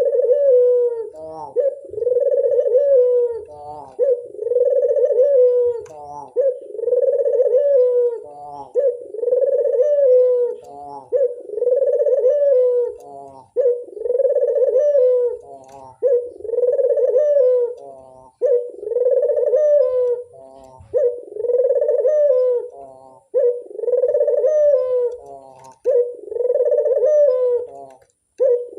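Burung puter (collared dove) cooing loudly over and over, one phrase about every two seconds: a short broken lead-in running into a longer, low coo.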